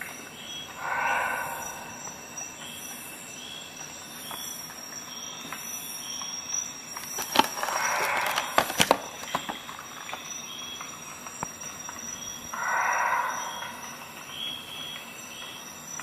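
Stiff plastic blister packaging being handled, crackling and clicking for a couple of seconds in the middle, with short rustling swishes near the start and near the end. A faint steady high whine runs underneath.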